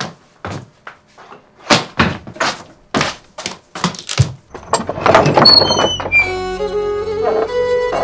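An uneven run of sharp thuds and knocks for the first half, then a dramatic music score with sustained string-like tones comes in about halfway and carries on.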